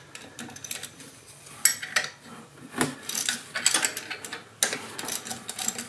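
Scattered metallic clicks and clinks of a wrench and loosened nuts and bolts being worked by hand on the mounting of a golf cart's starter generator, a few sharper knocks among them.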